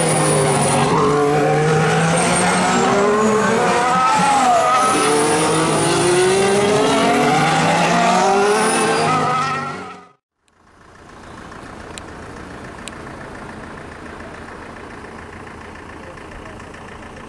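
2014 Formula 1 cars' 1.6-litre V6 turbo hybrid engines running on track, their pitch rising and falling through gear changes, with overlapping engine notes. The sound cuts off abruptly about ten seconds in. A much quieter steady background noise with a couple of sharp clicks follows.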